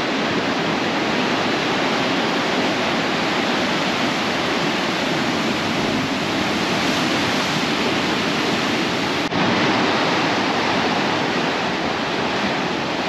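Heavy ocean surf breaking against volcanic rocks: a steady, loud rush of white water, with a brief dip about nine seconds in and slightly louder after it.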